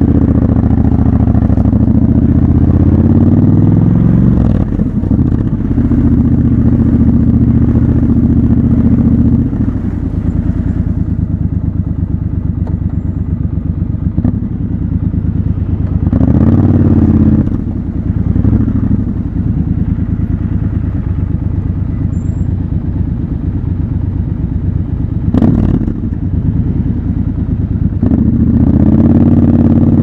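Triumph Scrambler 1200 XC's 1200 cc parallel-twin engine running at low revs while the bike rolls slowly, with short throttle blips that rise and fall near the start, about halfway through and again near the end. A single sharp click cuts in about 25 seconds in.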